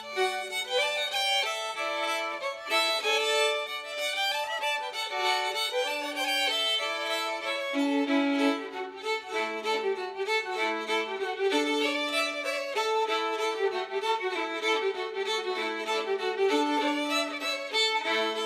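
Background music: a fiddle playing a folk tune, its notes changing quickly and steadily.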